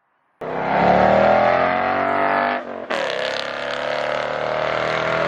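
2017 Mustang GT's V8 running through a Borla Atak cat-back exhaust in a hard pull-by, starting abruptly and loud, with a brief break in the engine note about halfway through before it pulls on again.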